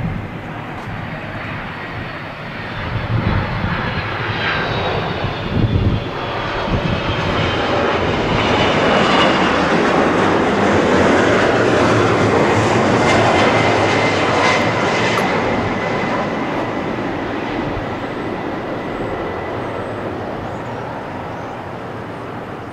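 Boeing 767 jet engines on final approach as the airliner passes low overhead. The noise builds to its loudest about halfway through, then slowly fades. A high engine whine slides down in pitch over the first several seconds, and a steady whine holds later.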